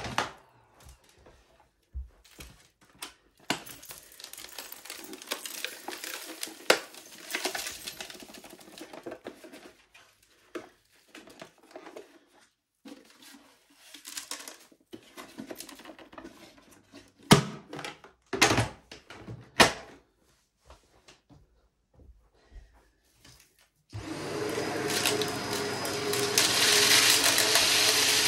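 Vacuum cleaner handled while switched off: scattered clicks, knocks and rustles with quiet gaps between them. Near the end it switches on suddenly and runs with a steady noise.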